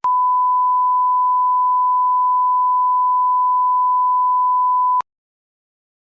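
A single steady, loud electronic beep tone held for about five seconds, then cut off suddenly.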